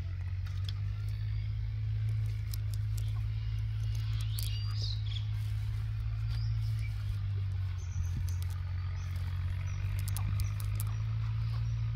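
Steady low hum of a running engine throughout, with a few bird chirps about four seconds in and scattered light clicks.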